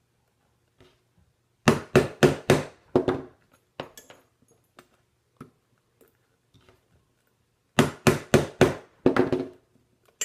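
Hammer striking a steel rivet setter to set rivets through leather on a small anvil plate: a quick run of about five sharp blows, a pause, then another run of about six blows for the next rivet.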